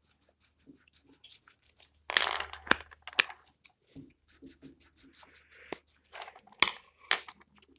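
A colouring tool scratching across the page of a colouring book in short strokes, with a few sharp clicks and taps in between.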